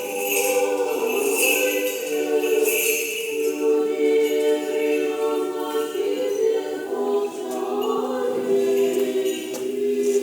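Russian Orthodox church choir singing unaccompanied, several voices holding long chords and moving slowly from note to note.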